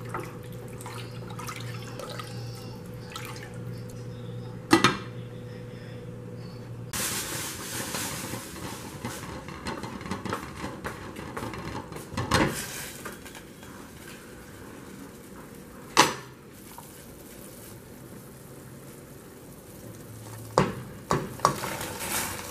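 Kitchen pot sounds: a metal spoon stirring and knocking against a stainless steel saucepan, with a stretch of liquid splashing or pouring, and a few sharp clinks of metal and a glass lid. Near the end there is a short cluster of knocks as cooked white beans are tipped from a bowl into the pot.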